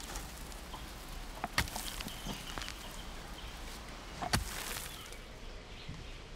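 Outdoor rural ambience with scattered short knocks and steps, two sharper knocks about a second and a half and four and a half seconds in, over a faint steady hiss.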